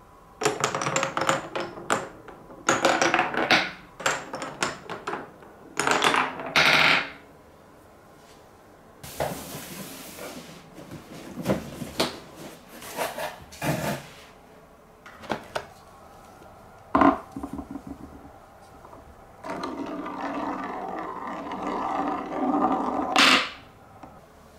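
Wooden marble-run blocks clacking and knocking together as they are handled, with a cardboard toy box being moved partway through. Near the end, a marble rolls steadily around a plywood spiral track for about four seconds and finishes with a sharp clack.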